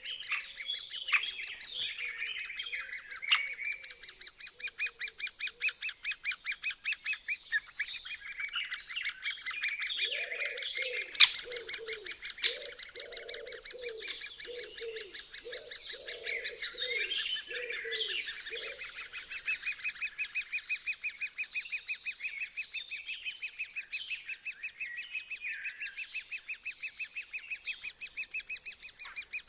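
Woodpeckers calling from their nest in a tree trunk: a rapid, continuous high-pitched chatter, joined for several seconds about a third of the way in by a run of lower repeated notes.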